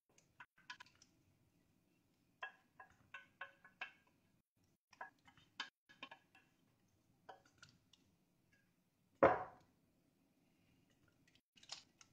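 A utensil scraping and tapping against a stainless steel pot as a vegetable mixture is emptied out of it: a scattered string of light clicks and taps, with one louder thump about nine seconds in.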